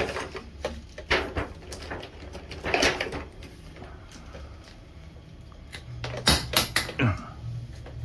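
Hard plastic vacuum attachments and an adapter knocking and clicking as they are pushed together and fitted onto the wand, with several sharp knocks, a quick cluster of them near the end, over a low steady hum.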